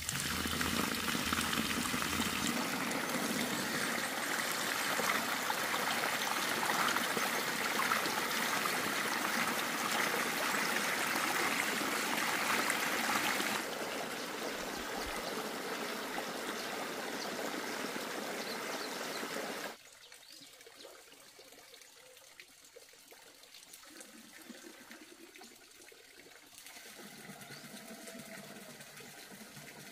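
Water running and pouring, a steady rushing noise that drops in level abruptly about 14 seconds in and again, much further, about 20 seconds in.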